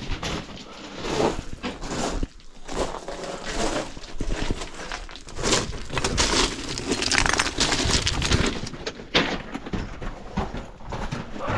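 Footsteps crunching and scraping over loose rock and sand, in uneven bursts as someone scrambles along.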